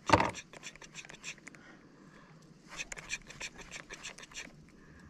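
Faint, irregular clicking and ticking from a baitcasting reel and rod being worked as a topwater lure is twitched and its slack reeled in, with one louder knock right at the start.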